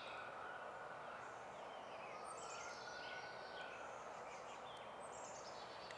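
Steady rush of flowing creek water. A bird sings faintly over it, a high descending run of notes twice, about two seconds in and again about five seconds in.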